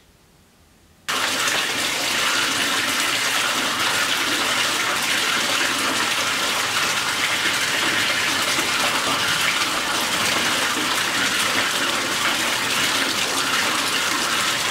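Tap water pouring into a bathtub that is filling up, a steady rushing splash that starts about a second in after near silence.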